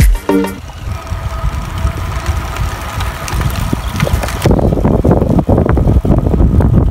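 Road bike rolling along a gravel track, heard from on the bike: wind rumbling on the microphone and tyres crunching over loose gravel, the crunching louder from about halfway in.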